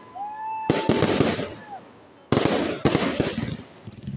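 Fireworks bursting about three times, each burst sudden and followed by a dense crackle lasting about a second. A steady high whistle runs through the first burst.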